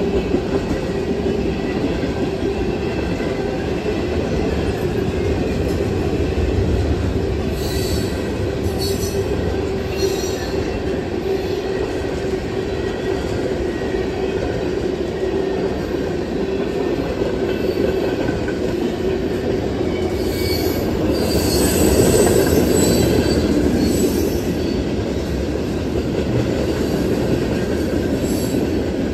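Freight train cars rolling past close by with a steady rumble of wheels on rail. High-pitched wheel squeal comes and goes, briefly about eight to ten seconds in and longest about twenty to twenty-four seconds in, where the sound is loudest.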